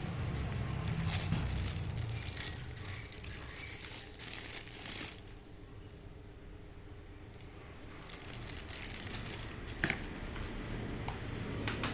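Packaging being handled and unwrapped: irregular crinkling and rustling with scattered light clicks, and one sharp click near the end.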